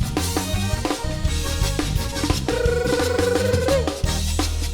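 Live band playing an upbeat dance groove, with drum kit and a steady bass line; a single wavering note is held for about a second in the middle.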